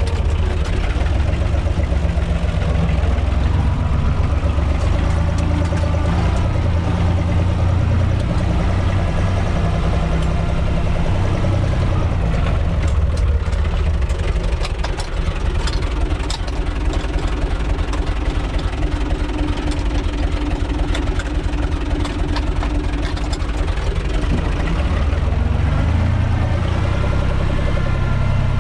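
UTB 445 tractor's diesel engine running steadily, heard from inside its cab, with scattered clicks and rattles. The engine note dips briefly about halfway through.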